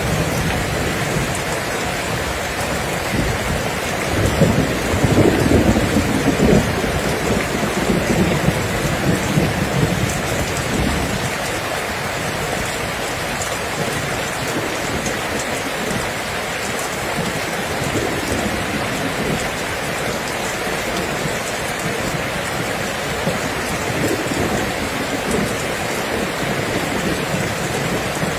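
Steady heavy rain falling, a constant hiss, with a low rolling rumble of thunder that swells about four seconds in and fades out by about eleven seconds.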